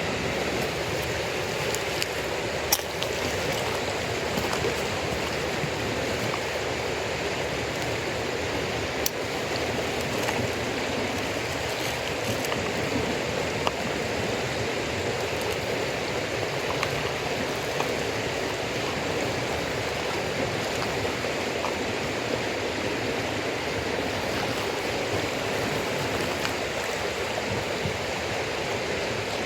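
Campfire of damp firewood crackling, with scattered sharp pops, the loudest two about three seconds and nine seconds in, over a steady rushing hiss.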